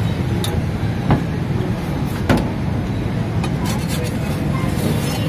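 Steady low rumble of street traffic, with a few sharp clicks and knocks, single ones about half a second, one second and two seconds in and a short cluster near four seconds.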